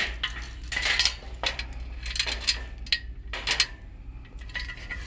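Metal mini fluted (bundt) baking pans clattering and clinking as they are handled and shifted on a store shelf, in irregular bursts of knocks, over a steady low hum.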